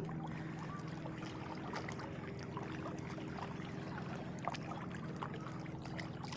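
A boat's motor hums steadily while water laps and splashes against the hull, with small scattered knocks.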